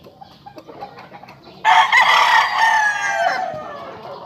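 A rooster crows once, loud and sudden, a little over a second and a half in; the long call lasts about two seconds and drops in pitch as it trails off. A few faint clicks come before it.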